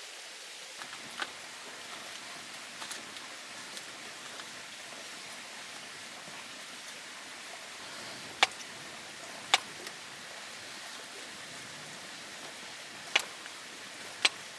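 Wood fire burning with a steady hiss and a few sharp crackling pops, two of them loudest a little past the middle.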